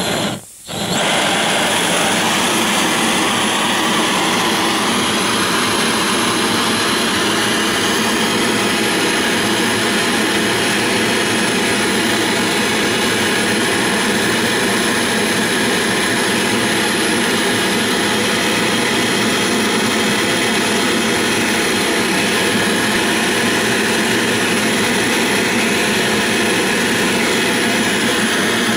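Gas brazing torch running with a steady roar, heating a small copper boiler's seam so the silver solder flows round the joint. It cuts out for a moment about half a second in, then runs on evenly.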